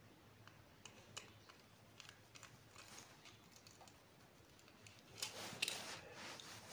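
Faint hand-handling sounds from electrical wiring work: a few light clicks and taps from a plastic switch box being set down. About five seconds in comes a brief, louder rustle with clicks as the loose copper wires are picked up.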